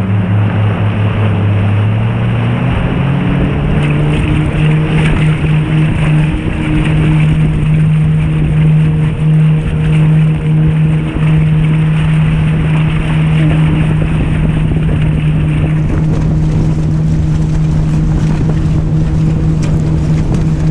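Motorboat engine towing a tube, its pitch climbing for a couple of seconds as it speeds up and then running steadily, over a constant rush of wake water and wind.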